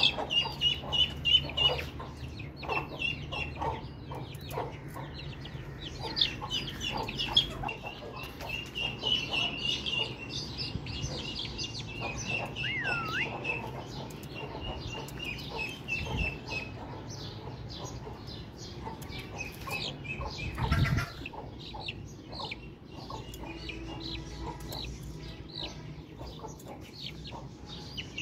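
Chickens clucking, with many short sharp calls in the first few seconds, over repeated high peeping from chicks. A brief dull knock sounds about three-quarters of the way through.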